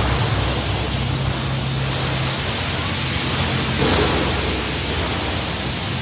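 Water spraying with a steady loud hiss from a fire-sprinkler line broken by the boat's tower, over a low steady hum.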